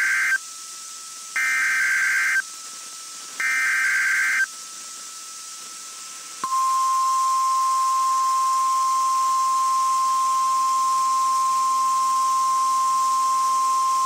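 NOAA Weather Radio SAME alert header: the end of one burst of digital data, then two more, each about a second long with a second's gap between them. About six and a half seconds in, the steady single-pitch Weather Radio warning alarm tone begins and holds. It signals a Required Weekly Test.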